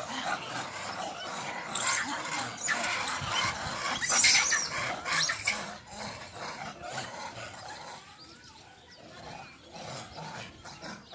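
Animal growls and squealing cries from a standoff between a kitten and monkeys, loudest about four seconds in and dying down after about six seconds.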